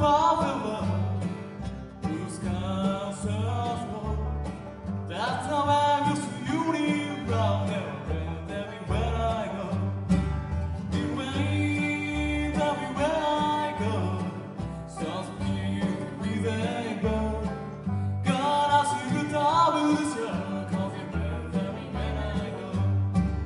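Bluegrass band playing live: mandolin, upright bass, acoustic guitar and banjo, with a voice singing the melody in phrases over a steady plucked bass line.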